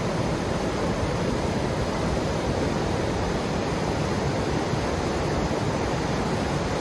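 River rapids rushing over rocks into a pool: a steady, unbroken rush of white water.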